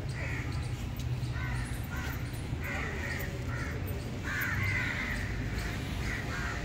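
Crows cawing again and again at irregular intervals, over a low steady rumble.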